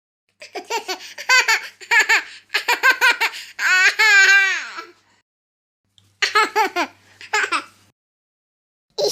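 A baby laughing in short high-pitched bursts, with one long wavering laugh about four seconds in. After a short silence a second laughing clip follows, with a faint hum under it.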